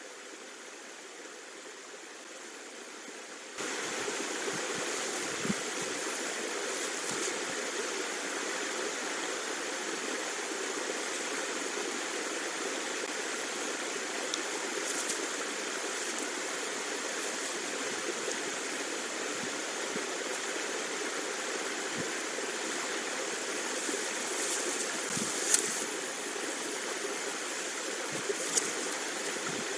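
Steady hiss of rain falling on an outdoor webcam microphone, stepping up sharply in level about three and a half seconds in, with a few faint taps.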